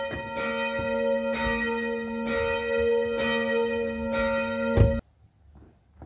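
Church bell ringing, struck about twice a second, its tones ringing on between strikes; it cuts off suddenly about five seconds in.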